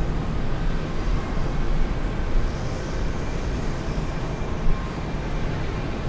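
Jet aircraft engines rumbling steadily, a continuous low roar with no sudden changes.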